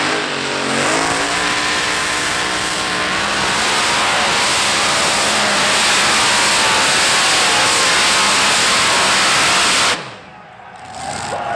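Heavy modified pulling tractor's engines at full throttle, rising in pitch in the first couple of seconds and then running flat out with a loud, steady roar. The sound drops off abruptly about ten seconds in.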